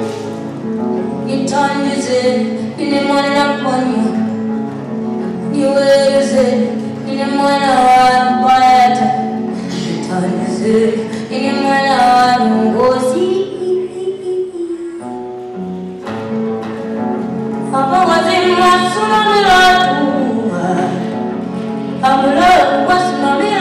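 A woman singing a song while accompanying herself on acoustic guitar, with a brief break in the singing about two-thirds of the way in.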